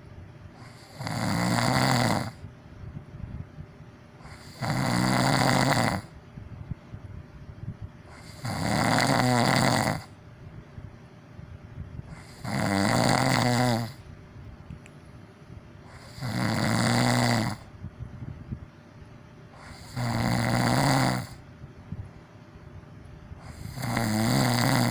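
A person snoring in a steady rhythm: seven loud snores, each about a second long, coming about every four seconds, with quieter breathing between them.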